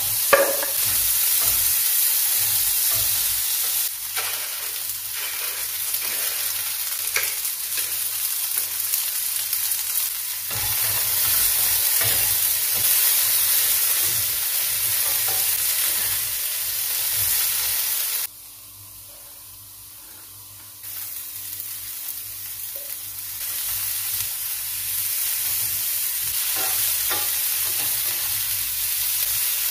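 Diced potatoes and sausage frying in a pan, sizzling steadily, with a spatula scraping and stirring them, and a knock near the start. The sizzle cuts out for a few seconds about two-thirds through, then comes back.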